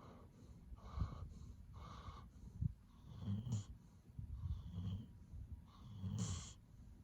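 Chocolate Labrador Retriever snoring in its sleep: a series of snuffling breaths, roughly one a second at first and then slower, several of them with a high whistling wheeze.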